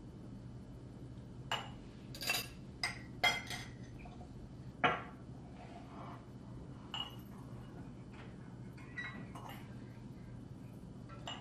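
Metal teaspoons clinking against ceramic mugs and a clay sugar pot while sugar is spooned in and tea is stirred: a scattered run of sharp chinks, the loudest between about one and a half and five seconds in, then a few fainter ones.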